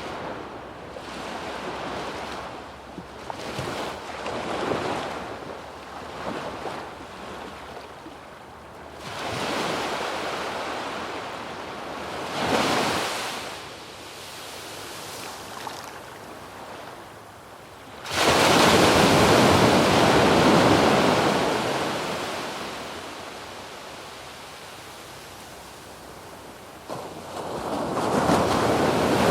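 Small waves breaking and washing up a sandy beach, each surge swelling and ebbing; the loudest wave breaks suddenly about two-thirds of the way through and hisses out over several seconds, and another builds near the end. Light wind is on the microphone.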